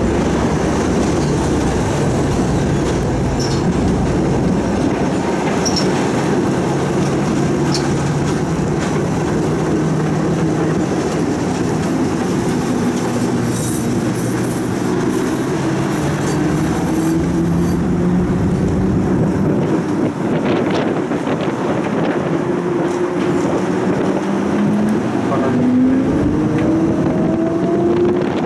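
Tram running on its rails: a steady rumble of wheels on track, with a motor hum that rises in pitch as the tram picks up speed, most clearly in the last several seconds.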